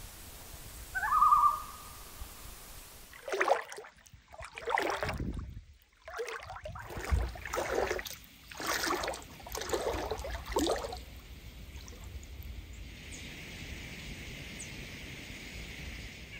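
Common loons calling: one short pitched call about a second in, then a run of repeated, louder calls over the next several seconds.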